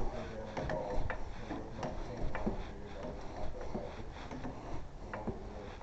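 Irregular sharp clicks and light knocks, one or two a second, from hand tools being worked on a car wheel's lug nuts.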